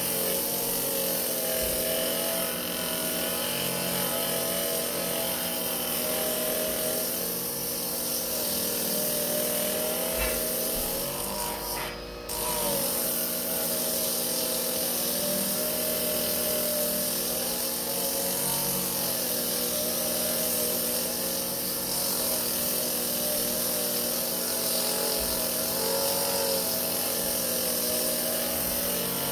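Small bench-top electric edge burnishing machine running, its wheel working the edge of a veg-tan leather belt. The motor's steady whine wavers in pitch as the leather is pressed against the wheel, and there is a brief dip about twelve seconds in.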